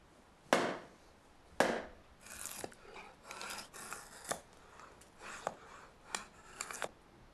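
A mallet strikes a splitting blade into a wooden log twice, about a second apart, with sharp knocks. Then a curved drawknife shaves a wooden stave in five or six short rasping strokes, a few ending in a click.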